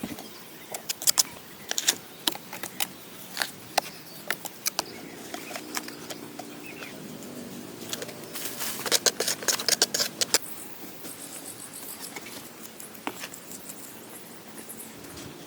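Wood being handled during shelter building: irregular sharp clicks, snaps and knocks, with a quick run of them about eight to ten seconds in.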